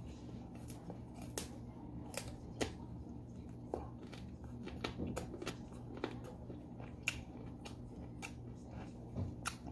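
Close-up crunching of raw green mango being chewed: short, crisp clicks at irregular intervals, a couple a second, over a steady low hum.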